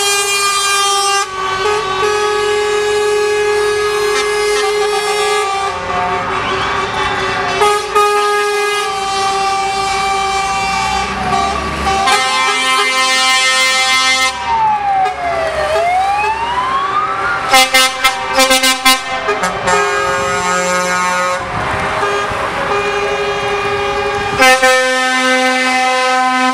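Parading semi-trucks sounding their air horns in long held chords, several horns overlapping. In the middle a siren glides down and back up in pitch, with a quick run of short horn toots around the same time.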